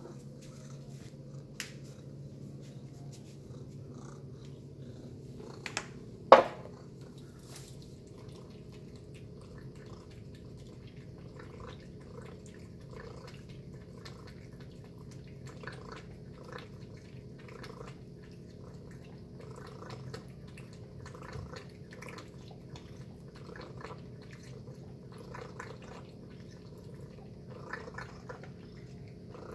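Tabby cat eating wet cat food from a metal bowl: soft chewing and licking sounds about once a second, over a steady low hum. A single sharp clank about six seconds in.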